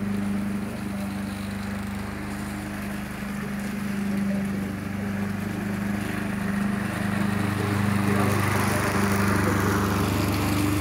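Gas walk-behind rotary lawn mower running steadily while cutting grass, getting louder in the last few seconds as it comes close.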